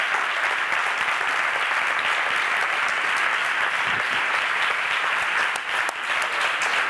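A large audience applauding steadily: dense, even clapping with no break.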